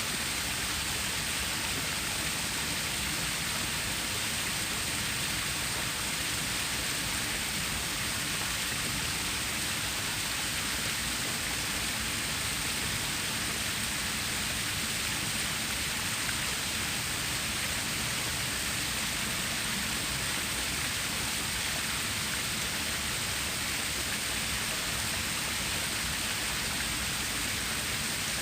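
Running water of a stream or small waterfall: a steady, unbroken rushing hiss.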